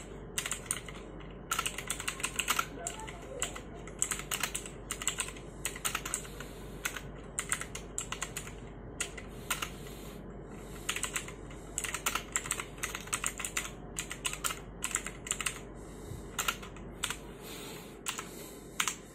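Typing on a Rexus Legionere MX9 mechanical keyboard with clicky Outemu Blue switches: quick runs of sharp key clicks broken by short pauses.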